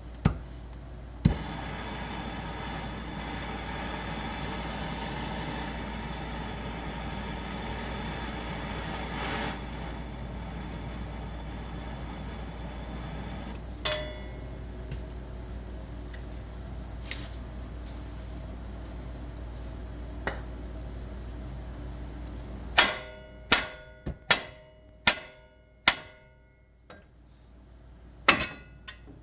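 Hammer blows on the steel suspension of a Subaru Impreza, working a stubborn lower control arm loose: a run of sharp, ringing metal strikes near the end, about six in all. Earlier, a steady machine whir runs for several seconds over a constant low hum.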